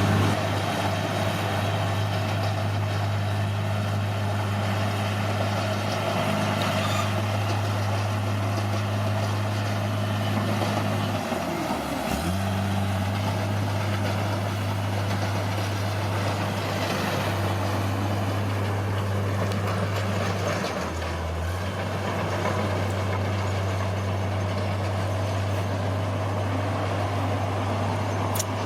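Heavy diesel engine of an earthmoving machine running steadily. Its speed dips sharply about twelve seconds in and drops again briefly around twenty-one seconds, each time coming back up. A short click comes near the end.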